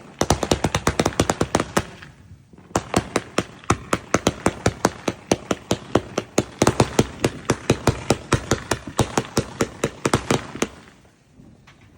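Fireworks going off in a rapid run of sharp cracks, about ten a second, like a firecracker string or machine-gun-style firework. There is a short break about two seconds in, and the cracks stop near the end.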